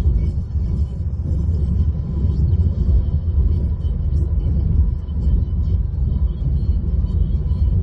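Steady low rumble of a car heard from inside the cabin, with a faint thin tone above it.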